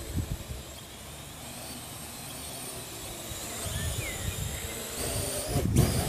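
Parrot AR.Drone quadcopter's four electric rotors whirring steadily in flight, with low rumbling underneath. It grows louder near the end as the drone climbs close by.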